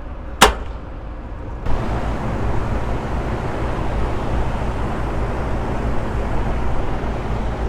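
A sharp click, then a little over a second later the steady running noise of an AC condensing unit comes in suddenly: the rush of air from the newly fitted 460-volt quarter-horse condenser fan motor over a low hum, the unit now running properly.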